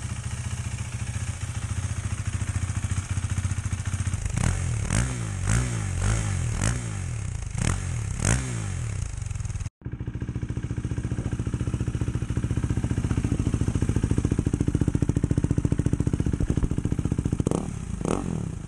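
KTM 390 Duke's single-cylinder engine idling through an aftermarket IXRACE MK2 exhaust, with a quick run of about seven short throttle blips in the first half and a few more near the end.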